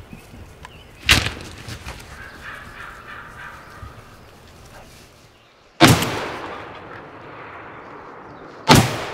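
Three shotgun blasts, about one, six and nine seconds in, the last two trailing off in a long echo.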